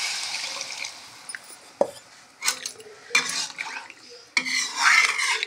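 Water poured into the hot iron kadhai hisses and dies away during the first second. Then a metal spatula knocks once and scrapes around the iron kadhai in several strokes, stirring the masala into the new gravy.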